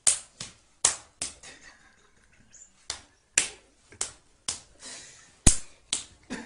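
A rapid, irregular series of sharp open-hand slaps, about a dozen, with a short pause near two seconds in and the loudest slap about five and a half seconds in.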